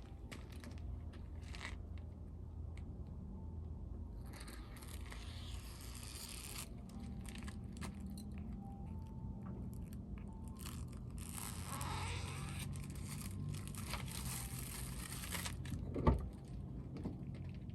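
Scraping and crinkling of a plastic window rain guard being fitted to a car door frame, likely its adhesive tape backing being peeled and the guard pressed into place, in two longer stretches over a steady low hum.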